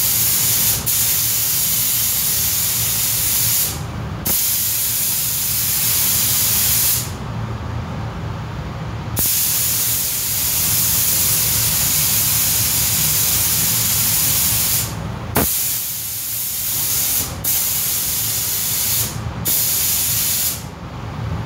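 Paint spray gun hissing as coats are laid on car body plastics, in long passes broken by short pauses where the trigger is let go. A steady low hum runs underneath.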